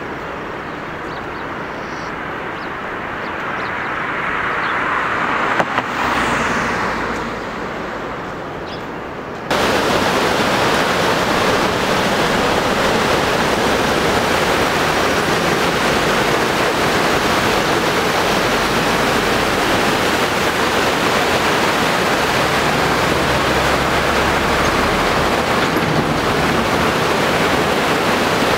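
Road noise from a moving vehicle, swelling and fading about halfway through the first part, then an abrupt change about nine seconds in to the loud, steady rushing of river rapids churning under a bridge.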